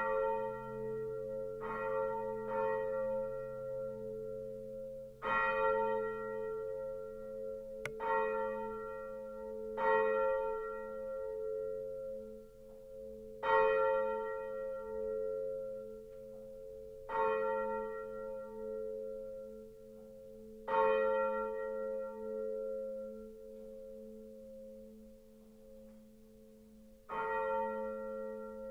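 Swinging church bells from a 1947 Albert Junker peal tuned des', es', f', as' and b', struck by their clappers, each stroke followed by a long humming ring. The strokes come further and further apart as the peal thins out, and the deepest hum fades away about halfway through.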